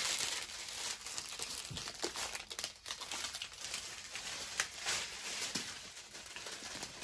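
Plastic packaging crinkling and rustling as bags of diamond painting drills are handled, with many small crackles throughout.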